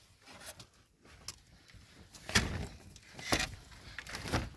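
Three heavy thumps, about a second apart, each followed by a brief low rumble.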